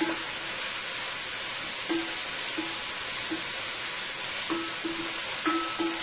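Chopped onion, scallion, garlic and chili sizzling steadily in hot olive oil in a deep pot, stirred with a wooden spatula that knocks and scrapes against the pot in short, irregular strokes.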